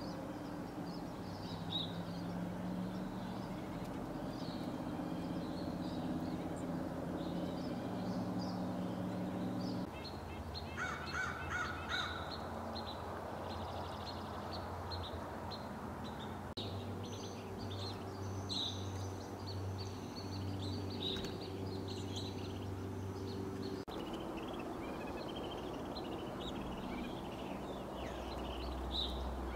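A flock of songbirds calling, evening grosbeaks among them: many short high chirps and call notes, with a harsher, repeated call standing out about ten to twelve seconds in. A steady low hum runs underneath.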